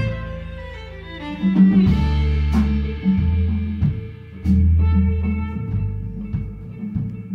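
Small band playing an Irish jig: plucked double bass notes, guitar and violin, with drum kit and cymbal hits marking the beat.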